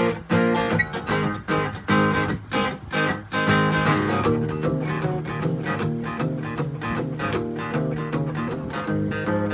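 Acoustic guitar strumming a blues intro: short chord stabs with brief breaks, settling into steady strumming about four seconds in.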